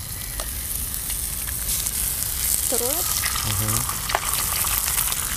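Sliced sausages and a freshly cracked egg frying in a small camping pan on a canister gas burner: a steady sizzle, with a few light clicks.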